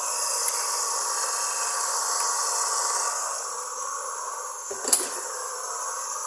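Homemade coconut grater, driven by a salvaged water-pump electric motor, running steadily with a hissing whine. A sharp click comes about half a second in and a short knock near the end.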